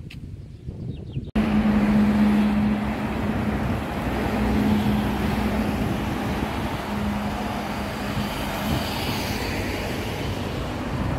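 Road traffic on a town street: vehicles passing, with a steady low engine hum that fades out after several seconds. The traffic sound cuts in suddenly about a second and a half in, after a quieter opening.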